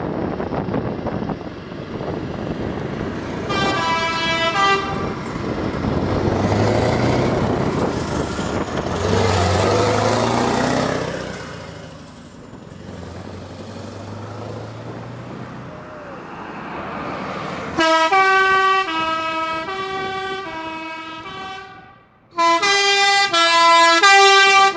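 Heavy trucks driving past: diesel engines and tyres, with a short air-horn blast about four seconds in. From about eighteen seconds a multi-note musical truck horn plays a stepping tune, and a louder run of it starts about twenty-two seconds in, the loudest sound here.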